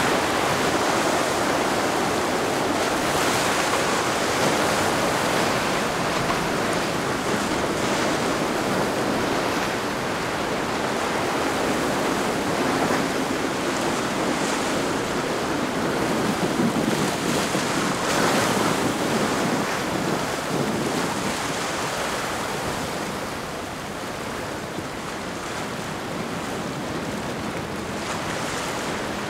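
Waves breaking and rushing, surging louder every few seconds, with wind buffeting the microphone. A boat engine drones faintly underneath at times.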